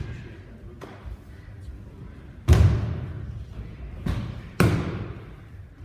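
Bodies landing on the dojo mats as aikido partners are thrown: two loud slapping thuds about two seconds apart, the first about two and a half seconds in, with lighter thumps around them, each ringing on in the large hall.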